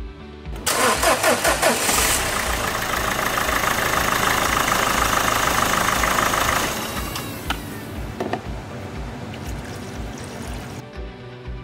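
Renault Duster's 1.5 diesel engine being cranked and starting about a second in, then running loud and steady for several seconds before dropping to a quieter level, as the engine is run to circulate the fresh coolant.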